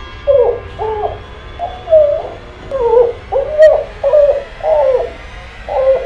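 A pug character's made-up gibberish voice: a run of about nine short, pitched syllables that rise and fall like speech but hold no real words, standing in for the dog's subtitled lines.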